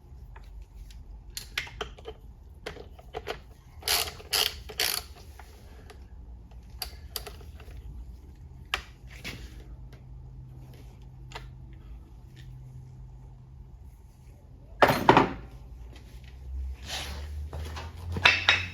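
Hand tools and metal parts clicking and knocking in scattered clusters during work on a ZF 8HP70 transmission, over a steady low hum. The loudest knocks come about four to five seconds in, again near fifteen seconds, and near the end.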